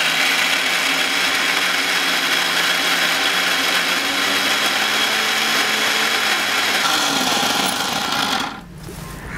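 Electric kitchen mixer grinder running steadily, grinding fresh green peas into a coarse paste, and switched off near the end.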